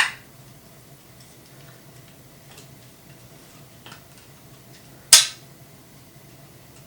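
Two sharp clicks of hard objects, about five seconds apart with the second louder, and a few faint ticks between: small hard parts being handled and set down.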